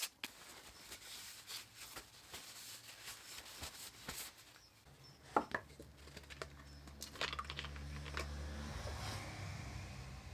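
Faint handling sounds on a workbench: scattered small clicks and knocks as a plastic bottle and a cloth are picked up and handled, loudest about five seconds in. A low rumble joins partway through.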